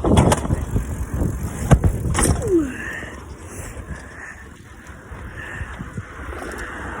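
Bicycle being ridden: a rumble with sharp knocks and rattles in the first couple of seconds, and a short falling squeak about two and a half seconds in, before the noise settles lower.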